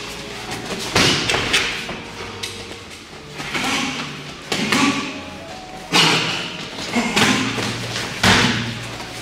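Gloved strikes landing in MMA sparring: a series of about six sharp thuds at irregular intervals, each with a short echoing tail.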